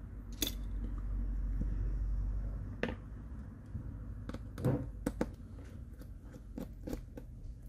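Scattered sharp little clicks and taps of a small precision screwdriver and plastic phone parts, from work on the screws of a Samsung Galaxy A20e's charging-port board. A low handling rumble runs under the first few seconds.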